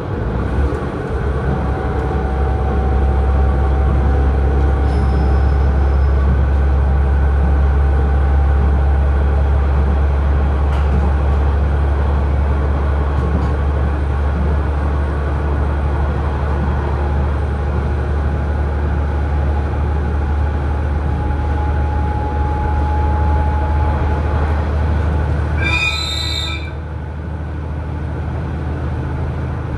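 KiHa 110 diesel railcar running along the line: a loud, steady low engine drone and rail noise from about a second in. Near the end comes a brief high-pitched sound of about a second, and the drone then drops a little.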